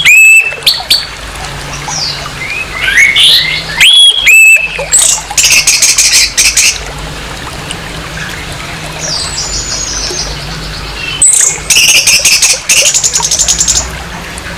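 Orange-headed thrush singing: loud whistled notes that sweep upward, broken by rapid harsh rattling trills, one about five seconds in and another near twelve seconds.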